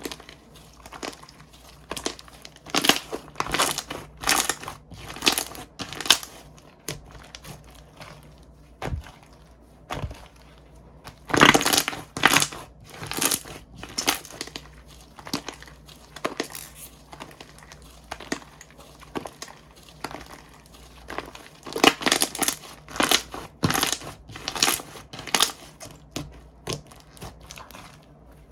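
Slime being pressed and stretched by hand, giving irregular sharp clicks and squishes that come in busy runs, with quieter stretches in between.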